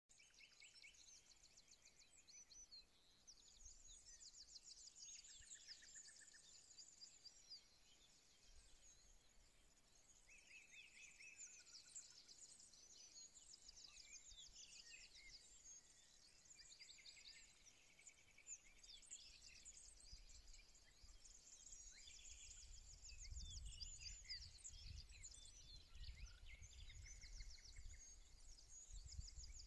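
Faint twittering and trills of small birds, with a low rumble joining in about two-thirds of the way through.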